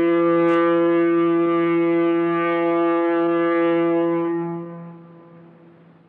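Foghorn sounding one long, steady deep blast that fades out about five seconds in.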